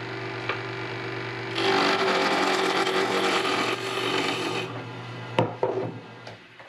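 Harbor Freight 10 x 18 benchtop mini wood lathe running with a steady hum, while wood on the spinning spindle is worked for about three seconds, a loud scraping hiss. There is a click about five and a half seconds in, and then the motor's hum dies away as the lathe is switched off.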